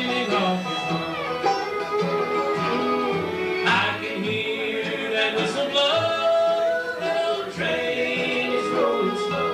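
Bluegrass band playing an instrumental passage, with fiddle over guitar and banjo.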